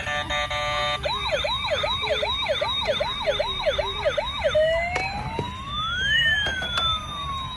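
Toy ambulance's electronic siren: after a short steady beep chord, a fast repeating yelp of about two and a half sweeps a second begins about a second in, then changes to a slow rising and falling wail.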